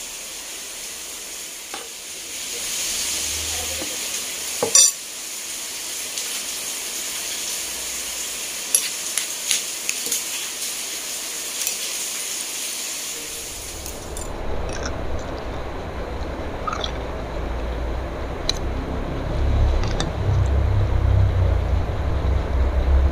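A metal spoon and fork clinking and scraping against a ceramic plate as they cut into a giant bakso meatball in wet sauce, with scattered sharp clicks. A steady hiss fills the first half, and a low rumble replaces it a little past halfway.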